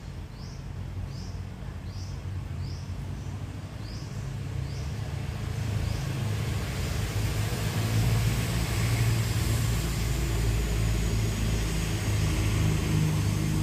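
A series of short, high, rising chirps, about two a second, fades out about halfway through. A low, engine-like rumble then swells and becomes the loudest sound.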